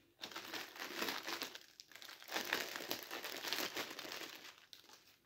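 Crinkling of food wrapping being handled and opened, a dense run of crackles that dips briefly about two seconds in and tails off near the end.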